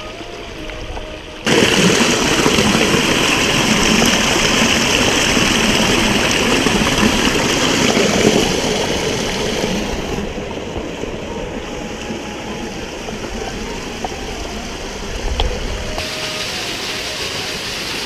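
Stream water rushing over rocks, a steady noisy rush that starts abruptly about a second and a half in and sounds duller in its second half.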